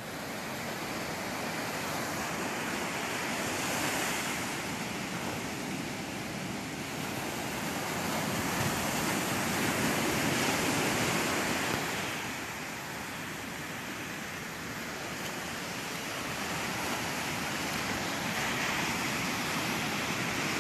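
Ocean surf: waves breaking and washing up a sandy beach in a steady rush that swells and ebbs, loudest about ten seconds in as a big wave breaks.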